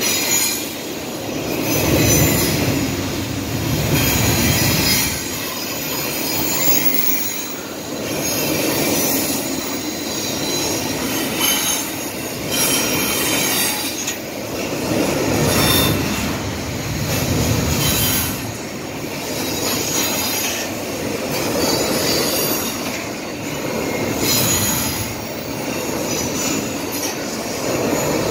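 Double-stack intermodal well cars rolling across a steel deck girder bridge, their wheels running on the rails in a continuous loud rumble and rattle that swells and eases every few seconds as the cars pass.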